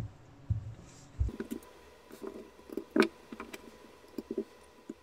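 Light clicks and taps from handling a folding knife's small screws and parts and a Torx screwdriver, with a few dull bumps in the first second and a sharper click about three seconds in.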